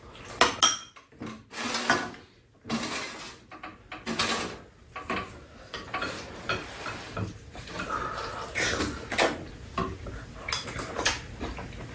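Metal spoons and chopsticks clinking and scraping against bowls as two people eat, in short irregular clicks.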